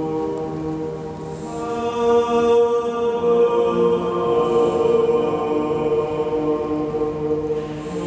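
A voice singing long held notes in the Pisa Baptistery, each note ringing on under the dome so that the successive notes overlap and sound together as a chord. New notes come in about two seconds in and again a second or so later.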